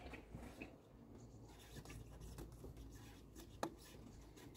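Faint rubbing and small plastic clicks of hands fitting the electrical plug onto an ignition coil, with one sharper click about three and a half seconds in.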